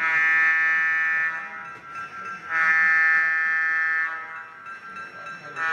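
Model locomotive's sound-system horn blowing two long blasts and then a short one near the end, the start of the long-long-short-long grade-crossing signal.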